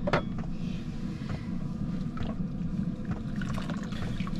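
Washing up by hand in a plastic bowl of soapy water: light splashes and small clinks of a knife in the water, with one sharp knock just after the start. A steady low hum runs underneath.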